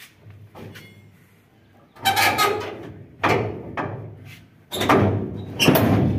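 Hoist chain and steel parts of a Swaraj 8100 combine's drum clanking and rattling as the chain is rigged. There are four loud metallic clanks, the first about two seconds in, each dying away.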